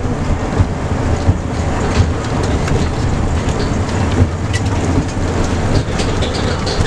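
Inside a moving shuttle bus: a steady low rumble of engine and road noise, with scattered knocks and rattles from the bus body.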